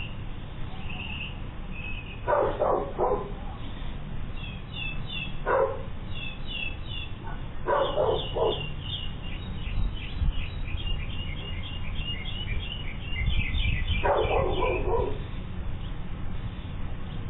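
A dog barking in four short bouts, with small birds chirping between and over the barks, heard through a doorbell camera's microphone.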